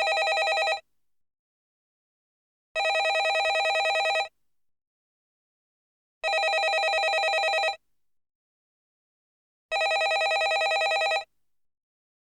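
Landline telephone ringing in short rings about a second and a half long, one every three and a half seconds, with silence between them.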